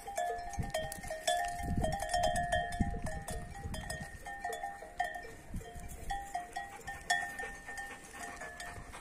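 Bells on grazing sheep clinking irregularly, several bells at slightly different pitches ringing on and off, with low rumbling handling noise close to the microphone.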